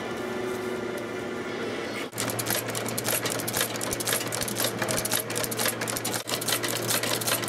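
About two seconds of steady background music, then a leather-stitching sewing machine starts running: a fast, dense clatter of needle strokes over a steady motor hum as a leather briefcase handle is sewn, with a brief break just after six seconds.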